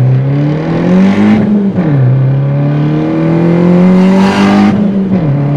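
Fiat 500 Abarth's turbocharged 1.4-litre four-cylinder, fitted with a bigger GT2860 turbo, pulling hard under acceleration, heard inside the cabin. Its pitch climbs steadily and drops sharply at two upshifts, a little under two seconds in and again near the end, with a rushing hiss building shortly before the second shift.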